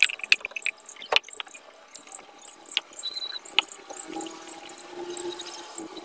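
Dry grass rustling and crackling against clay as handfuls are stuffed into clay pot nests, with a few sharp clicks in the first second or so. Small aviary birds chirp behind it, short high calls repeating about twice a second.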